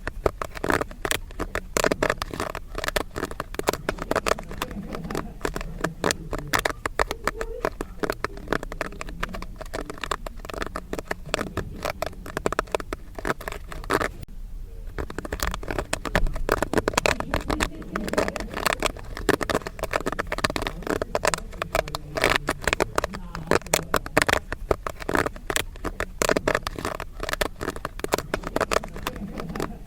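Popcorn kernels popping rapidly and densely, a continuous crackle of many sharp pops at once, with a short lull about halfway through.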